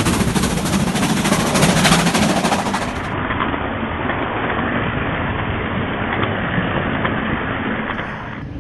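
LMS Black 5 steam locomotive working hard, its exhaust beats coming in a fast, dense run. About three seconds in the sound changes abruptly to a duller, steadier rumble of the train running.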